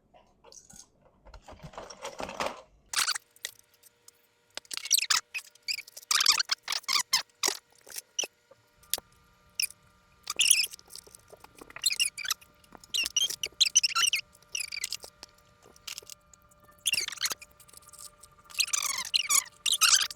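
Small metal and plastic wargaming miniatures clattering as they are handled and set down on a table: rapid clusters of light clicks and knocks.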